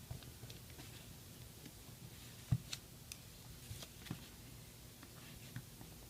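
Small screwdriver clicking and tapping against an iPhone 6 Plus's frame as the tiny side screws are taken out: a few light, scattered clicks, the loudest about two and a half seconds in, over faint room hum.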